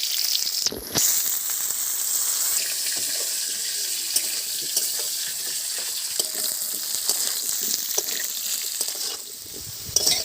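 Washed potato pieces frying in hot mustard oil in a kadai: a steady sizzle, with a loud burst of spitting a little under a second in and scattered clicks.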